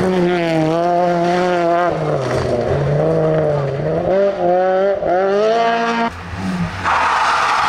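Rally car engines at full throttle on a gravel stage, the revs climbing and dropping sharply several times through gear changes. About seven seconds in, after a brief drop in level, a loud rushing noise takes over.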